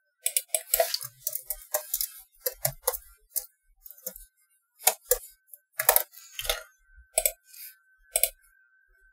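Typing on a computer keyboard: a quick, irregular run of key clicks, thinning out after about three seconds into a few separate single clicks.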